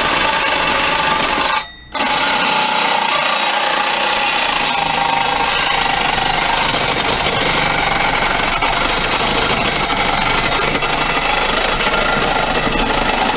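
Cordless reciprocating saw cutting steadily, stopping once briefly about two seconds in and then running again until it cuts out at the end. It sounds weak, which the user takes for its battery running down.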